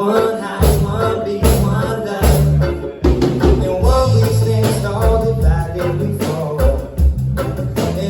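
Live band playing with a male singer, a strong bass line and tambourine-like percussion.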